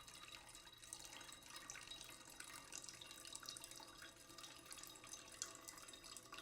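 Near silence with a faint sound of running and dripping water, with small scattered drips.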